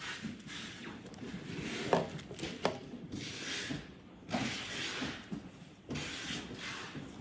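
Handling noises from plastic vacuum-cleaner parts and an adapter being fitted: scattered sharp clicks and knocks, two loud ones about two seconds in, with short scraping swishes in between.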